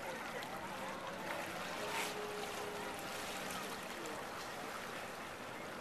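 Seawater washing and lapping against breakwater boulders, a steady wash.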